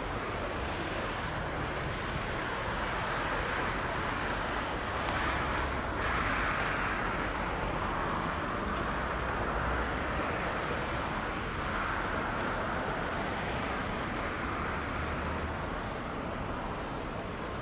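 Steady rushing of a distant jet airliner, swelling a little around the middle.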